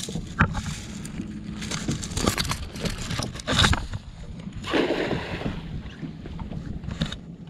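A monofilament cast net is thrown from a boat: the net swishes out and lands on the water. Several sharp knocks and splashes follow as its hand line is hauled back in, over a faint steady low hum.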